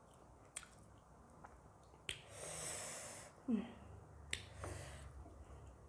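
Quiet eating sounds made by hand: a few soft clicks and smacks from fingers working rice and curry on a metal plate and from the mouth. There is a sniffing breath about two seconds in and a brief low vocal sound just after.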